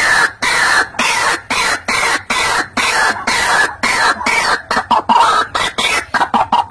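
White-breasted waterhen calling: a fast series of loud, harsh notes, about two or three a second, quickening near the end.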